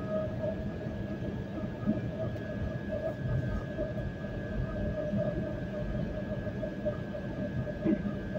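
Cabin interior of a Koleje Śląskie EN76 (PESA Elf) electric multiple unit: a steady rumble with an electric whine held at one pitch.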